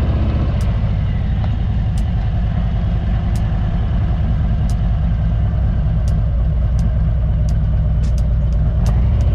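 Motorcycle engine running steadily, its firing pulses dense and low, getting slightly louder near the end.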